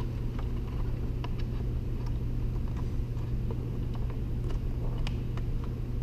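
A string of small plastic clicks and taps as a car-radio dash-kit housing is handled and its pieces snapped into place, over a steady low hum.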